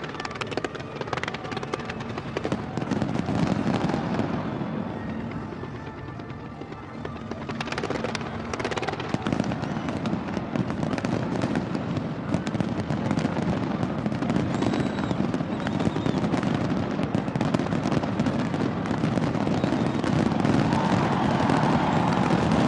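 Fireworks display: a dense, continuous run of bangs and crackling, growing louder toward the end.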